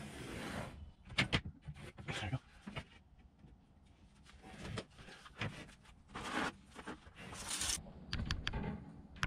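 A steel ceiling bracket is held against drywall and its outline traced in pencil: several brief scratching strokes, with a few small clicks and knocks as the bracket shifts against the ceiling.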